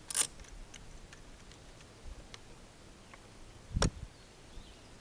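Scattered light clicks of a hand ratchet driving a screw through a metal strap hinge into a wooden gate post. There is a sharp click just after the start and a heavier knock a little before the end.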